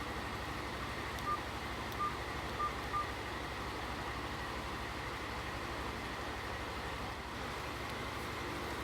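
Four short, single-pitched electronic beeps from a W26 Plus smartwatch, a few seconds in and unevenly spaced, over a steady hiss and low hum.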